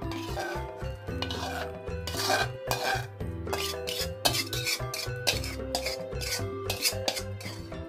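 Metal spatula scraping the inside of an aluminium wok in repeated quick strokes, pushing thick tauco sauce out into a bowl, over background music.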